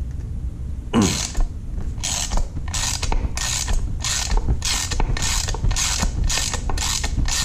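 Hand socket ratchet clicking in short strokes, roughly two a second from about a second in, as a bolt is run into the tight, paint-clogged threads of a Hasport engine mount bracket.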